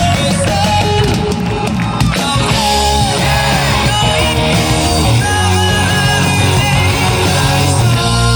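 Live rock band music: electric guitar over bass and drums, playing steadily and loud.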